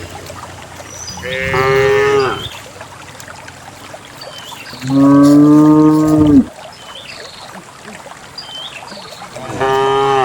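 Cows mooing: three long calls a few seconds apart, the middle one lower-pitched and the loudest.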